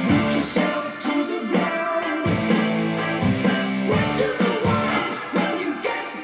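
Rock music with electric guitar and a steady drum beat, played back through a pair of vintage Acoustic Research AR-2a loudspeakers whose volume pots have just been cleaned.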